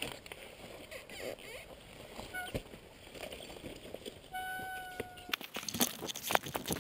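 Rustling, scraping and knocking as the camera is handled and picked up. The handling noise is loudest and densest in the last second and a half, and it is preceded by a brief steady beep-like tone about two thirds of the way in.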